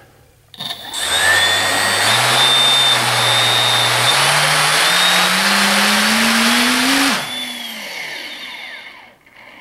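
Skywalker AX2814 brushless motor, driven by a 40A ESC, spinning a propeller up with a loud whirring whine whose pitch holds, then climbs steadily as the throttle is raised. About seven seconds in, the sound drops off abruptly as the propeller comes loose off the shaft, and the motor winds down.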